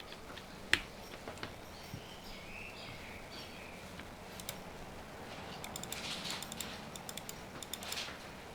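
Keystrokes on a QK65 mechanical keyboard with a POM plate, lubed and filmed Gateron Oil King switches and GMK keycaps. Scattered single presses, one sharp clack about a second in, then a quick flurry of keypresses in the second half.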